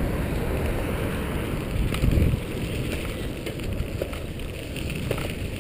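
Wind buffeting a helmet-mounted microphone at speed, over the rumble of wheels rolling on a dirt trail, with a louder gust about two seconds in.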